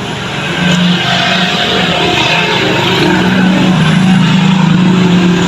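An engine running steadily close by: a constant low drone with a hiss over it, swelling in over the first second.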